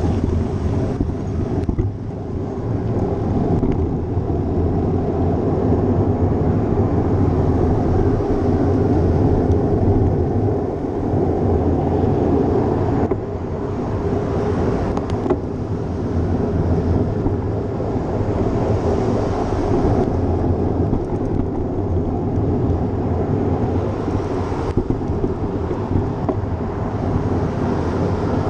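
Wind rushing over a GoPro's microphone while cycling: a loud, steady, mostly low-pitched rumble that wavers a little but never stops.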